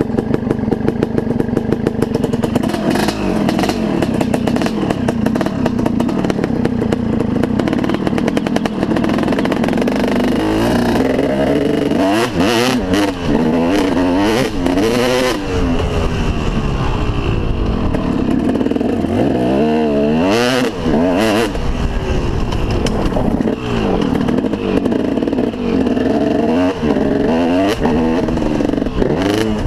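KTM SX 250 two-stroke motocross engine, 2003 model, running steadily at low revs for about the first ten seconds, then revving up and down repeatedly, its pitch rising and falling with each gear change as the bike rides the dirt track.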